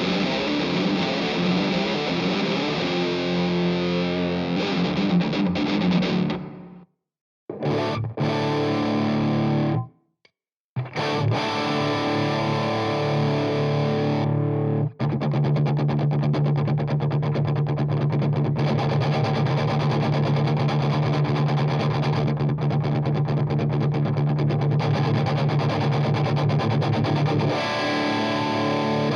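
Distorted electric guitar played through a Keeley D&M Drive pedal at a high-gain setting. Heavy riffing stops dead twice, about seven and ten seconds in, then gives way to a long run of fast, steady picking on one low note.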